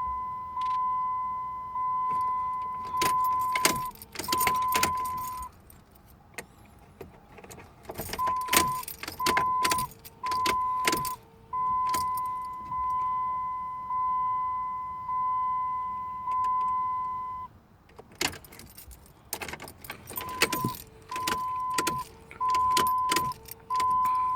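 A car's dashboard warning chime sounds as a steady electronic tone, about a second at a time with short gaps, while a key ring jangles and clicks as the ignition key is turned. No engine cranking is heard: this is the no-crank condition that goes with code P1684.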